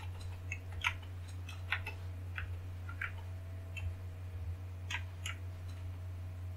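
Computer keyboard keys clicking in slow, irregular keystrokes, about ten of them, as an address is typed. A steady low electrical hum runs underneath.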